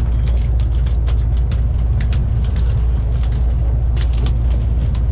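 Steady low rumble of the sportfishing boat's inboard engines running, with irregular sharp clicks and knocks over it.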